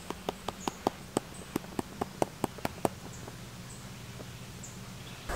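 A rapid, irregular series of sharp clicks, about four a second, thinning out and stopping about three seconds in, over a steady low hum.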